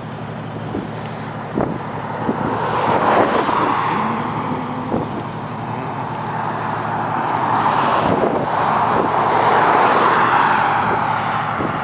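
Interstate traffic going by: tyre and engine noise from passing vehicles swells about three seconds in and again more strongly a few seconds before the end, over a steady low hum.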